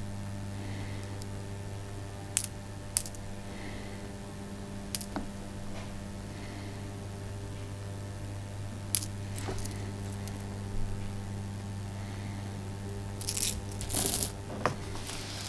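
Tahitian pearls clicking against each other as they are rolled between the fingers: a few separate clicks, then a denser clatter near the end as a hand presses into the pile of pearls. A steady low hum runs underneath.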